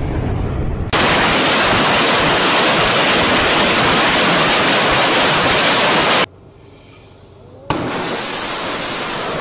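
BM-21 Grad multiple rocket launchers firing a salvo of 122 mm rockets: a loud, continuous rushing roar as the rockets leave the tubes in quick succession. It cuts off abruptly about six seconds in. After a brief quieter gap, a softer steady rushing noise follows.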